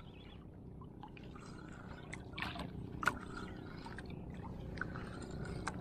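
Seawater washing against the hull of a small outrigger boat: a low, steady wash that slowly grows louder, with a few sharp clicks and knocks, the loudest about three seconds in.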